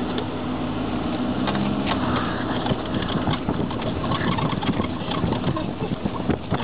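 Car engine pulling away and running at low speed on a gravel road, heard from the car, with tyre and road noise growing rougher after the first couple of seconds.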